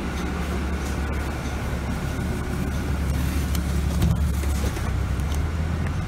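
City bus engine running with a steady low drone, heard from inside the passenger cabin, with scattered light clicks and rattles.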